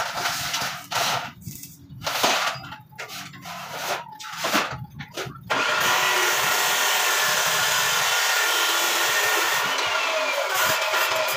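Stick (arc) welding on a steel grill frame: short, broken bursts of arc at first, then the arc runs continuously from about halfway through.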